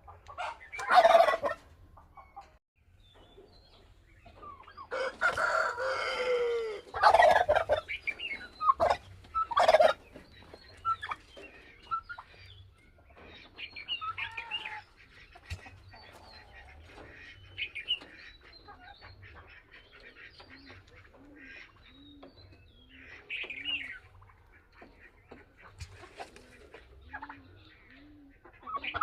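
Bourbon Red turkey gobbling in loud bursts about a second in and several times between five and ten seconds in, with softer clucks and calls of fowl in between. Near the end comes a run of short, low notes about one a second.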